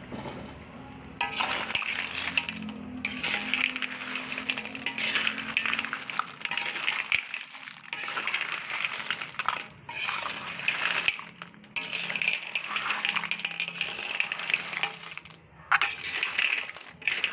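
Blood cockle and crab shells clattering against each other and the metal wok as the seafood is stirred. It comes in dense rattling runs of a second or several, broken by short pauses.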